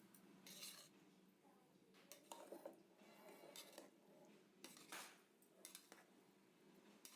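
Near silence, with a few very faint clicks.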